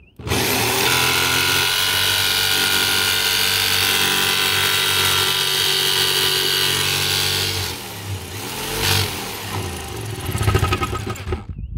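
Corded jigsaw cutting through a van's sheet-metal roof panel. It runs loud and steady for about seven seconds, then its pitch sags and recovers a few times over the last few seconds before it stops.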